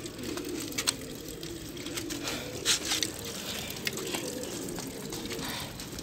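Domestic pigeons cooing softly and continuously in a cage, with scattered light clicks and taps.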